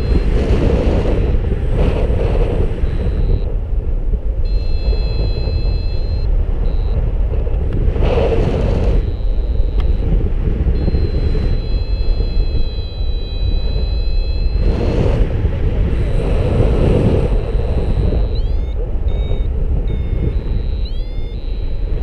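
Wind rushing over the microphone of a paraglider in flight: a loud, steady low rumble that swells with gusts several times. Faint high steady tones come and go, with a run of short rising chirps near the end.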